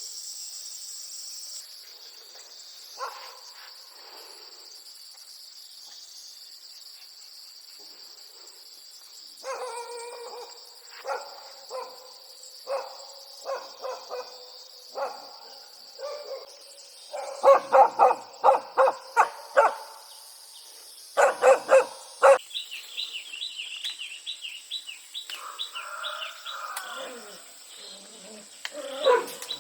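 A dog barking repeatedly in short runs over a steady high drone of insects, with birds chirping near the end.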